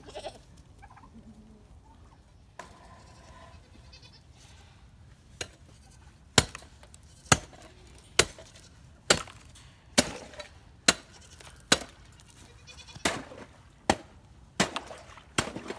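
Faint goat bleats in the first few seconds, then a steady run of sharp knocks, about one a second, ten or so in a row.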